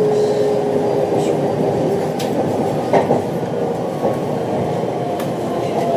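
Train running, heard from inside the passenger car: a steady rumble of wheels on rail with a faint whine, and a single sharp clack about three seconds in.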